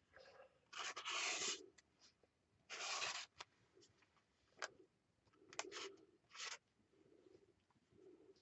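Chunky Stabilo Woody crayon pencil drawing short strokes on paper: a scratchy rub every second or so, about six strokes with faint quieter scratches between them.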